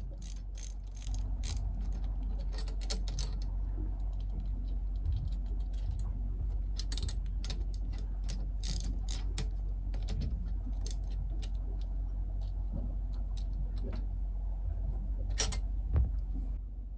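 Small metal hardware clicking and clinking as the U-bolts and nuts are worked off metal-wire fender baskets by hand, in irregular taps with a sharper pair of clicks near the end. A steady low hum sits underneath.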